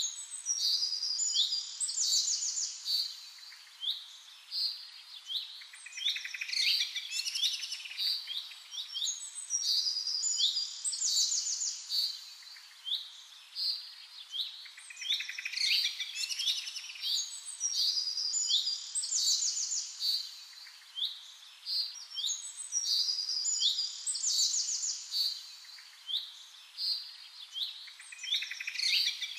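Birds chirping and singing: many short, high chirps and quick trills overlapping, with the same sequence of calls repeating about every eight to nine seconds.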